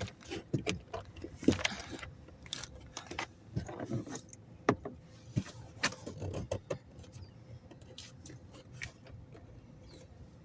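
Irregular clicks, taps and light rattles of hands working at a plastic trim panel that is still clamped in place, busy for the first several seconds and then sparse.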